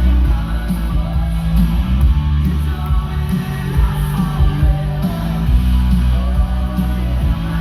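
Rock music with singing over a steady bass line.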